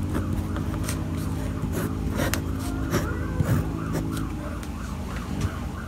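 Pen scratching on paper as a box is drawn around the answer, over a steady low hum that stops a little past four seconds in. From about three seconds in, a siren yelps in quick repeated rises and falls.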